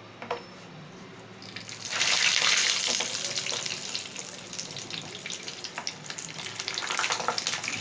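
Keema-stuffed green bell peppers deep-frying in hot oil: a loud sizzle with crackling sets in about two seconds in and keeps going, with small pops. A light tap comes just before.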